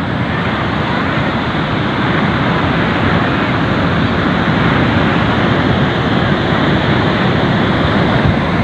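Heavy ocean surf: big waves breaking and washing up the beach in a steady, loud rush of noise.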